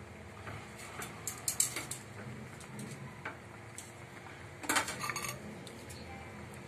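Metal tongs clinking and scraping against an enamel saucepan of chicken in cream sauce, with scattered clicks and a louder rattling cluster about five seconds in, as the pan is stirred.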